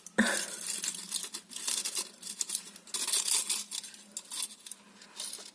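Tin foil and plastic crinkling and rustling in irregular bursts, with small clicks, as a foil-covered seedling insert is handled and fitted back into a hydroponic unit.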